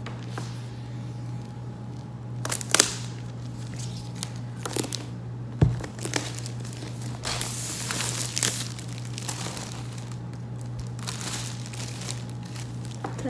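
Plastic shrink-wrap being pulled by its tab, torn off an iPad Pro box and crumpled: irregular crinkling and tearing with a few sharp snaps, densest about seven to eight and a half seconds in. A low thump comes about halfway through.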